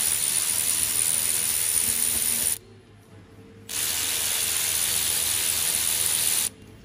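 Ratchet on a long extension with a Torx T30 bit spinning, undoing the bolts that hold the boost-pressure actuator to the turbocharger. It runs in two steady spells of about three seconds each, with a pause of about a second after roughly two and a half seconds.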